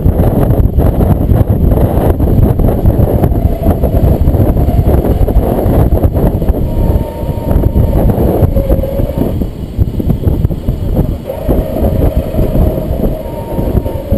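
An off-road vehicle's engine running loudly, with wind rumbling on the microphone. A faint higher whine comes in twice in the second half.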